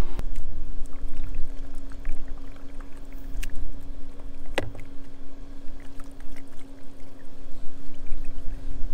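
Water trickling from a hanging camp-shower bag onto a wet puppy in a plastic tub, over a constant low rumble and a steady hum, with a single sharp click midway.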